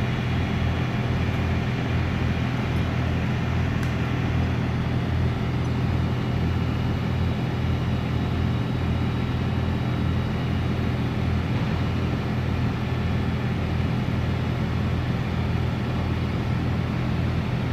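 An engine running steadily, a low even drone that holds the same pitch throughout.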